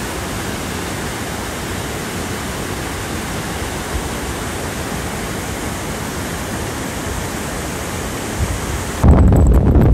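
Steady rushing of a creek in flood pouring over rocks and small cascades. About nine seconds in it gives way abruptly to much louder low rumbling and knocking close to the microphone.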